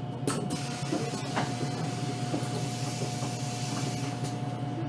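VDL Citea LLE-120 city bus heard from on board: the engine running steadily with a constant whine, while the bus's compressed-air system lets out a short hiss about a third of a second in and then a longer hiss lasting about three seconds.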